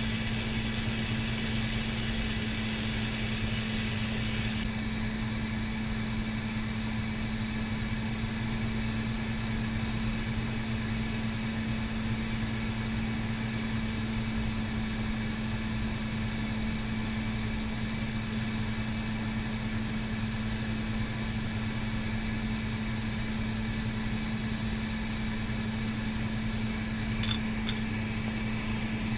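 Steady low motor hum under the even hiss of a glassworking bench torch; the higher part of the hiss drops away about five seconds in. A couple of light clicks come near the end.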